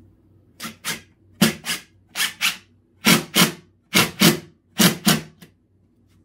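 Cordless impact driver driving a screw into a doubled wood board in short trigger bursts: about a dozen brief bursts in pairs, each pair under a second apart, stopping a little after five seconds in.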